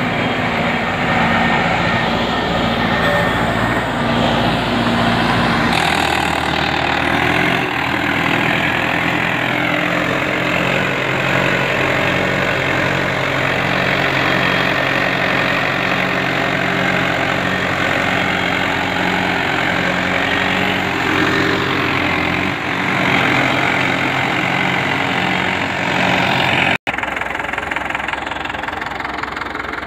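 Mahindra 595 DI tractor's diesel engine running steadily under load as it drives an 8-foot rotavator tilling soil. The sound shifts abruptly about six seconds in and again near the end.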